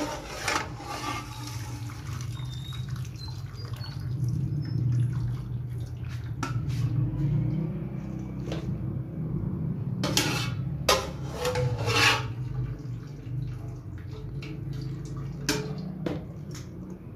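Boiled spinach and lotus stem being ladled out of an aluminium pot into a steel colander: wet splashing and water draining through the holes, with a few sharp clinks of metal on metal. A steady low hum runs underneath.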